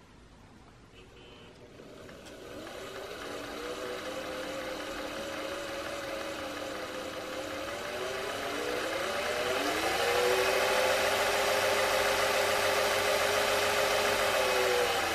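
Singer 500A 'Rocketeer' sewing machine with a freshly overhauled motor, starting up about two seconds in and running at a steady moderate speed. Around eight to ten seconds in it speeds up, the hum rising in pitch, and holds a fast steady run before beginning to slow at the very end.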